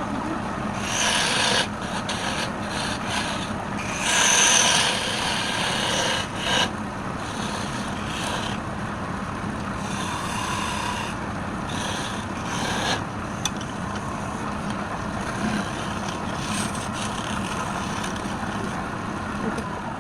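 Wood lathe running with a steady hum while the spinning workpiece is worked in repeated bursts of scraping, rasping contact, the loudest about four seconds in.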